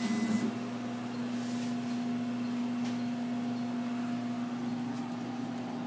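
Emco PC Mill 50 benchtop CNC mill humming steadily on one low tone while its axes are being zeroed.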